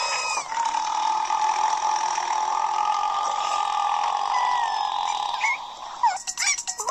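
A long, drawn-out burp held at a steady pitch for about five seconds, sinking slightly toward its end. Short sliding squeaks follow near the end.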